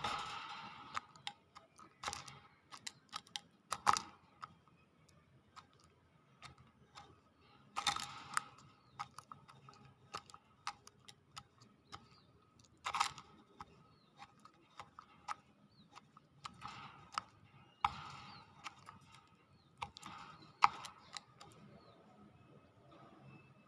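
Hill myna making irregular sharp clicks, with short rasping bursts every few seconds.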